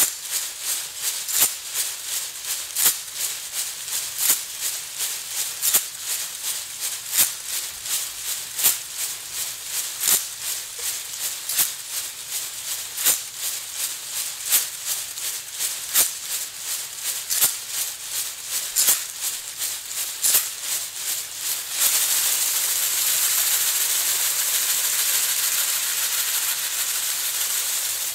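A hand rattle shaken in a slow, steady rhythm, one strong shake about every second and a half with lighter rattles between. Near the end the beat gives way to a continuous, louder hissing rattle for about six seconds.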